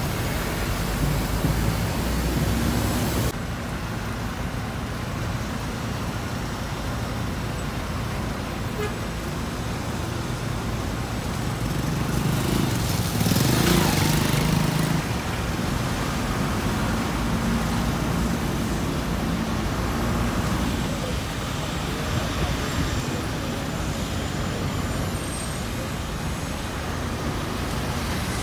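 Steady road traffic noise of vehicles running past, with one passing close and loudest about halfway through.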